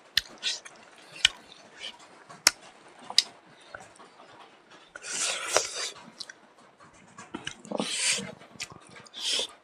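Close-up mouth sounds of eating smoked pork with the fingers: sharp lip smacks and finger-sucking clicks, then a few longer airy sucking or hissing breaths in the second half.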